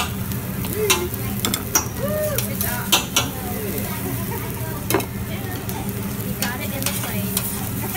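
Fried rice sizzling on a steel hibachi griddle while a metal spatula scrapes and clacks against the cooking surface, with sharp irregular clicks about once a second.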